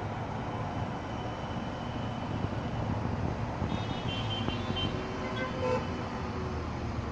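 Steady road-traffic rumble from cars driving through fog. About four seconds in come brief high-pitched tones, and near six seconds there is a short toot.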